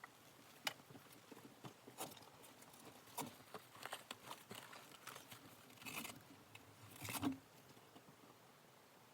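Faint, scattered light clicks, taps and knocks at an uneven pace, with a few louder knocks, the loudest about seven seconds in.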